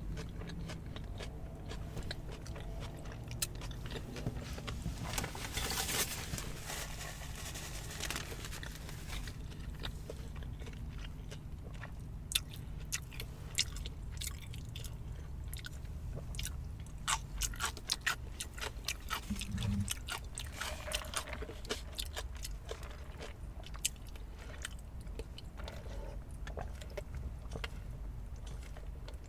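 Close-miked chewing and biting of fast food, with crunching and many short, wet mouth clicks and smacks.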